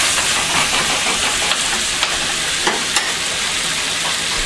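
Chopped shallots, garlic, green chillies and coconut pieces sizzling in hot oil in a clay pot as they are stirred and sautéed, a steady frying hiss with a few sharp clicks of the stirring spoon about two and three seconds in.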